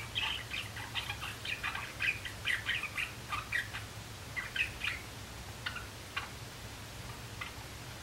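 Young male Java sparrow practising its song: a quick run of clicking, chirping notes for about five seconds, then a few scattered single notes.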